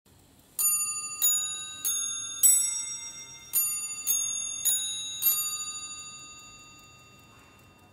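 Hermle tellurium clock chiming: its hammers strike nested brass cup bells for eight pitched notes in two groups of four, each ringing on. The last note fades away over a few seconds.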